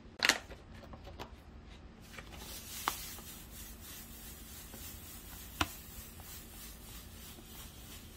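Granulated sugar pouring from a bag onto diced nectarines in a pot: a steady hiss that starts about two seconds in. There is a sharp click near the start and two more clicks during the pour.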